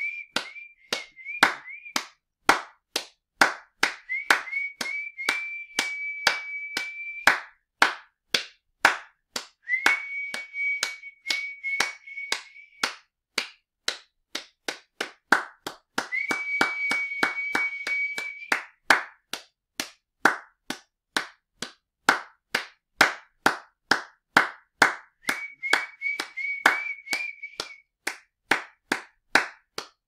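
Hand clapping in a steady, even beat of roughly two claps a second. A high held tone, starting with a short upward slide, comes and goes several times behind the claps.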